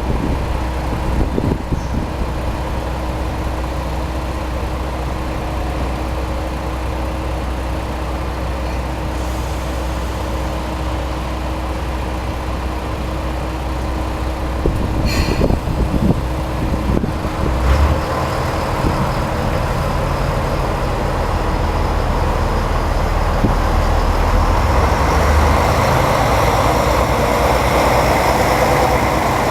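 Railway train running, with a steady low engine hum and a click about 15 seconds in. Its noise grows louder through the second half.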